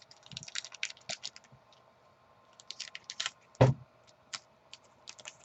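Trading cards being handled and flipped: a run of light clicks and taps, with one louder knock about three and a half seconds in.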